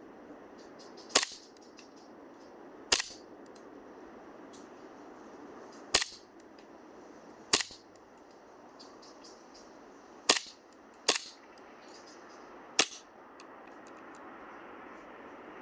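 KSC gas-blowback airsoft Makarov pistol fired single shots, seven sharp cracks of the slide cycling at uneven intervals of about one to three seconds.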